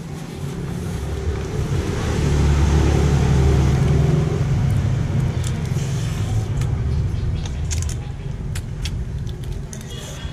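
A motor vehicle passing close by, its engine rumble swelling to its loudest two to four seconds in and fading away by about eight seconds.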